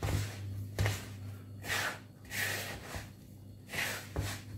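Hands rubbing damp semolina mixed with chopped herbs in a wooden bowl: gritty swishing strokes, roughly one a second.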